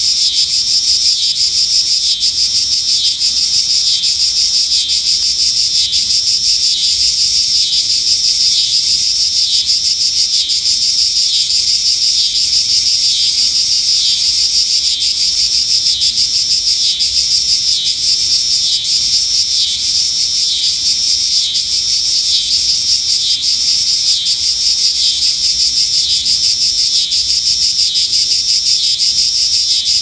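Cicada song: a loud, steady, high-pitched buzz with a regular pulsing pattern repeating throughout.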